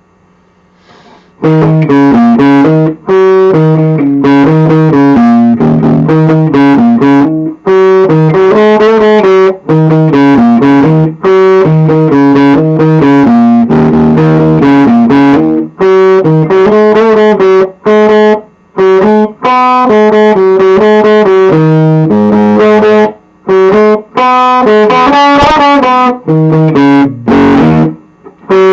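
Electric guitar, an upgraded Squier Classic Vibe '60s, played through an amplifier speaker with light overdrive: strummed chords and riffs starting about a second and a half in, broken by a few short pauses.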